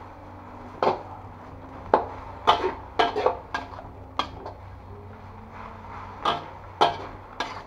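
Metal spatula scraping and knocking against a wok as water spinach is tossed in a stir-fry, about ten sharp clanks at irregular intervals.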